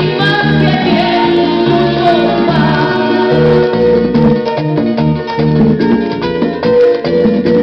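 Tropical Latin song played from a vinyl record on a Sony LBT-A195 stereo's turntable, in an instrumental break between verses: plucked-string melody over a steady repeating bass line.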